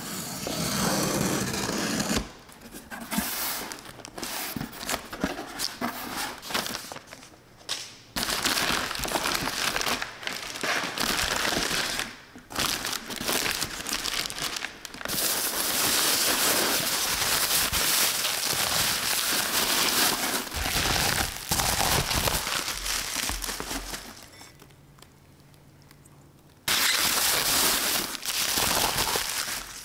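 Packaging being unwrapped: paper or plastic wrapping crinkling and crumpling in long rustling stretches with short pauses, quieter for a few seconds near the end.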